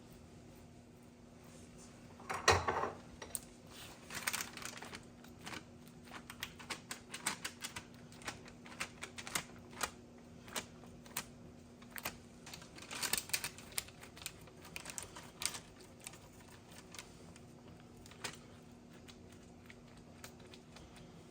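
Kitchen work sounds: irregular clicks and taps of utensils and dishes being handled, with a louder clatter about two and a half seconds in and a quick run of taps near the middle, over a faint steady hum.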